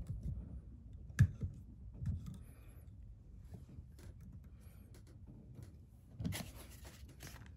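Faint handling noises of hands working fishing line into a knot, with scattered small clicks and one sharp click about a second in. A short rustling noise comes near the end.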